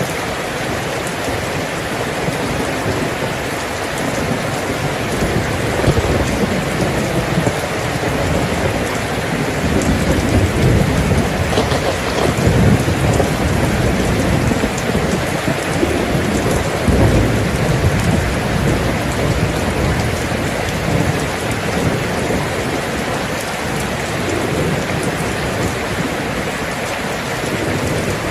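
Steady rain falling, with a low rolling rumble of thunder that builds in the middle and fades away.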